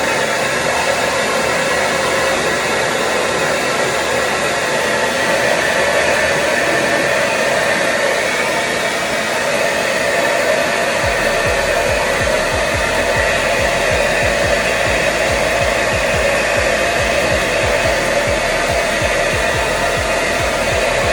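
Handheld blow dryer running steadily on high, drying the glue on a quick weave. A low rumble joins about halfway through.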